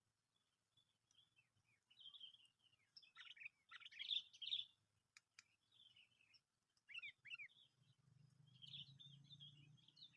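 Sooty-headed bulbul (kutilang) calls: short chirping notes in scattered phrases, loudest about three to four seconds in, with two quick falling notes about seven seconds in. A faint low hum joins about eight seconds in.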